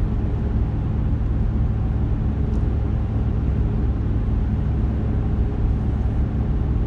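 Steady road and engine noise heard from inside the cabin of a moving vehicle: an even low rumble with a faint hum.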